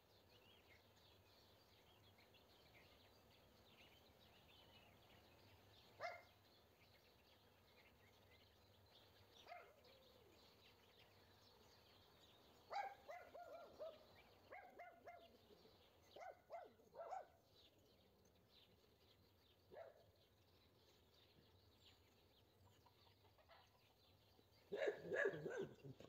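A farm dog barks and yips now and then: single calls, a run of several in the middle, and the loudest cluster near the end. Faint chirping and twittering of small wild birds runs underneath.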